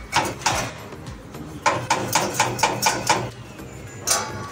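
Hammer knocking in quick, even blows, about four a second for a second and a half, after two single knocks near the start; another run of blows starts near the end.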